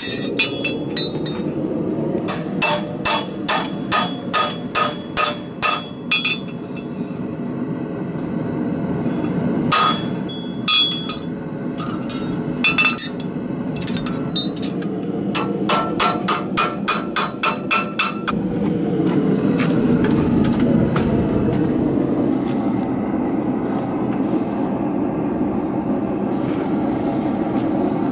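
Farrier's hammer striking an aluminum eggbar horseshoe on the anvil while shaping it. The blows come in quick runs of about three a second, each with a short ring. Under them is a steady rushing noise that gets louder for the last third, once the hammering stops.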